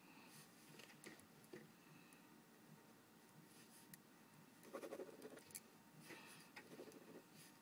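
Faint scratching of a pen scribbling on paper in a few short bursts, the strongest a little under five seconds in: a new pen being tried out.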